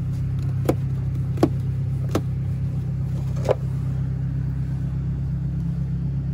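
Four sharp plastic clicks and knocks as the air box cover and air filter are handled, over a steady low hum.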